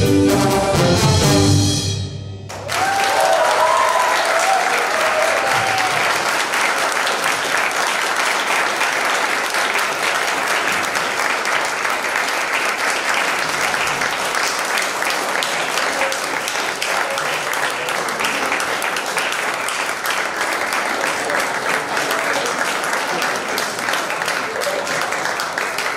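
A brass-and-drums jazz band ends on a held chord that cuts off about two and a half seconds in, followed by an audience applauding steadily.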